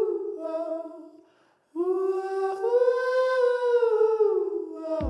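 A high solo voice singing long, wordless held notes that slide down in pitch at their ends, with a short silent break about a second in. A song's beat comes in at the very end.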